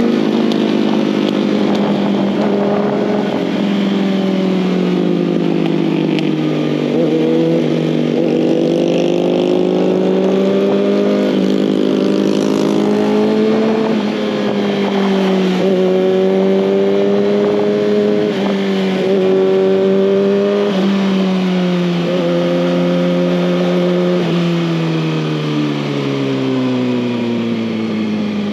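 2019 Kawasaki ZX-6R's 636 cc inline-four engine under way, its pitch climbing and then stepping down sharply several times as it shifts through the gears. Near the end the pitch falls steadily as the bike slows.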